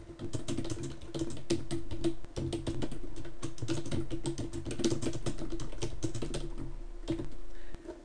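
Typing on a computer keyboard: a fast, continuous run of keystrokes that stops about seven seconds in.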